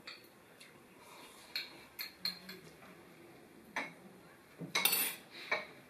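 Metal spoons tapping and scraping against ceramic bowls as people eat: scattered light clinks, with the loudest cluster about five seconds in.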